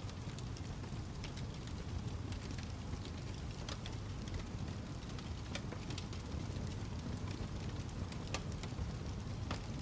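Wood fire crackling: a steady low rumble of flames with irregular sharp pops and snaps scattered throughout.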